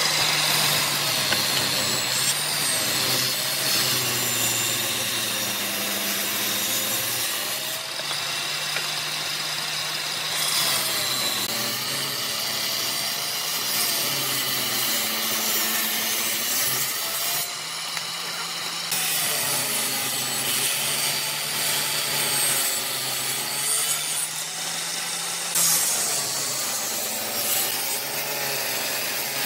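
Table saw running and ripping small wood offcuts into strips one after another, its pitch wavering as each piece is pushed through the blade.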